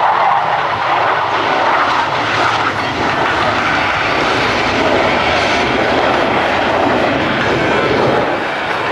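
Aerobatic propeller planes' piston engines running loudly overhead in a steady drone as they fly a formation pass.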